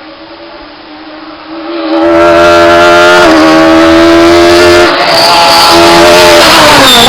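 Peugeot 306 Maxi rally car's four-cylinder engine under hard acceleration. It is fainter at first, then loud from about two seconds in, holding high revs through quick gear changes, and falls in pitch near the end as the car slows.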